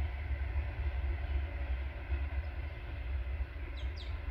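TasRail TR15 diesel locomotive running light engine and approaching, heard as a steady low engine rumble.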